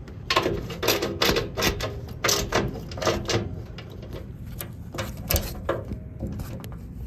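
Ratchet wrench clicking in short, irregular runs as bolts on the blower motor mount are tightened; the clicks thin out after about four seconds.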